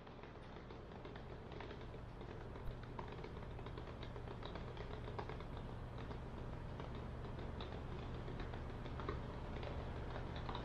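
Faint ambience: a low steady hum with scattered light clicks and ticks, one a little sharper about two and a half seconds in.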